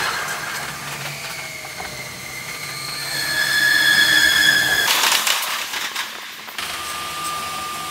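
Paris Métro train running through a tunnel, heard from inside, with a rumble and high whining squeal from the wheels on the rails that grows louder about three seconds in. Near five seconds the sound changes abruptly, then settles to a single steadier, quieter whine.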